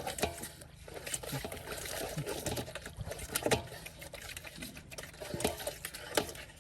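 Irregular slaps, splashes and sloshing of shallow muddy water as fish are grabbed by hand in a rice field.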